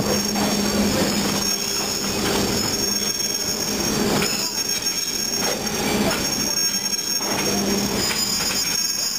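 Railroad car wheels running on steel rail: a steady high-pitched flange squeal rings over the rolling rumble of the moving train, with swells in the running noise about once a second.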